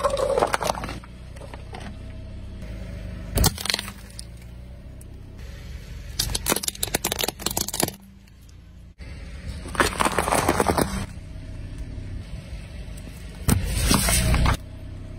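A car tyre rolling slowly over small plastic and paper objects, such as paper cups and toy cars, and crushing them. There are about five separate bursts of crunching and cracking over a steady low rumble from the car.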